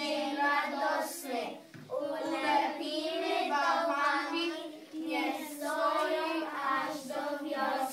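A group of schoolchildren singing a Polish winter song together, with short breaths between phrases about two and five seconds in.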